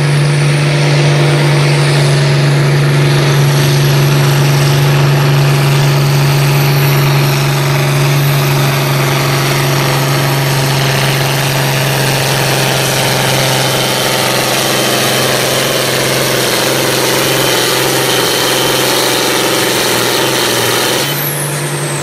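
Diesel engine of an International farm tractor running flat out under heavy load as it drags a pulling sled, a loud steady drone. Near the end the engine note changes and the sound eases off as the pull finishes.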